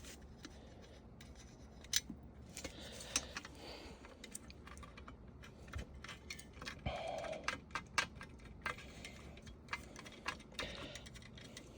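Scattered clicks and light clatter of small parts being handled, with a few sharper clicks standing out, as the exhaust fan motor assembly's parts are turned around and refitted.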